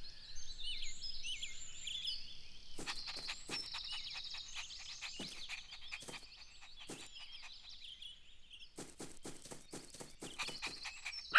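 Faint birdsong: many short, high chirps throughout, as a cartoon's outdoor background. A scatter of light clicks and taps joins in from about three seconds in, thickest near the end.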